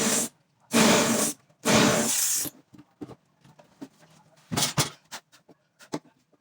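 A power tool's motor stops, then gives two short bursts about a second apart, followed by scattered light clicks and knocks.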